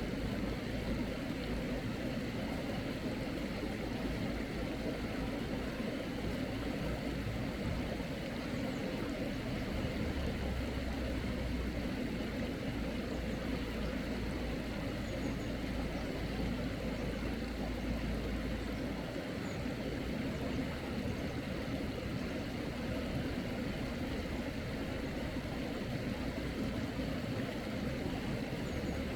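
Steady rushing of a flowing mountain stream, with a low rumble underneath.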